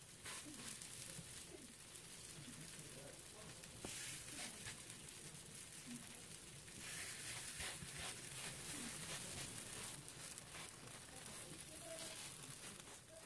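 Faint sizzling of masa pupusas on a hot nonstick electric griddle, with soft pats as more are set down on it.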